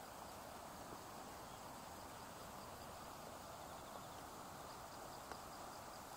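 Campfire burning quietly: a steady soft hiss with a faint sharp pop about five seconds in.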